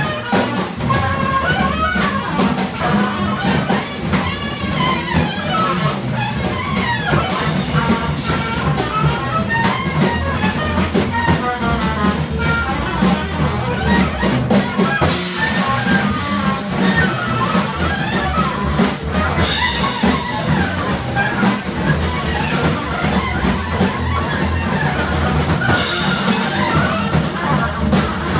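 Live jazz trio of drum kit, double bass and a straight reed horn playing together: the horn runs through fast, wavering lines over busy drumming and a steady bass. Cymbals swell up about halfway through and again near the end.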